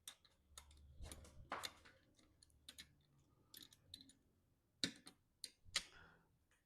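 Faint, irregular clicks and light taps, spaced unevenly, with two slightly sharper ones near the end.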